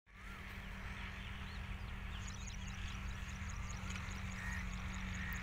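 Low steady drone of a diesel locomotive approaching in the distance, with birds chirping over it. From about two seconds in, a thin high ticking repeats about three times a second.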